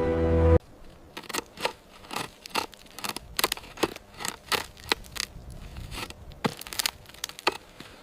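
Music cuts off about half a second in, followed by an irregular run of sharp crackling snaps, roughly two to three a second.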